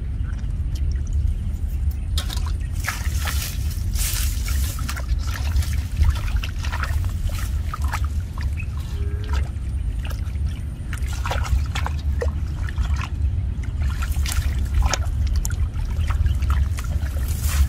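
Water trickling and splashing in short irregular bursts over a steady low rumble.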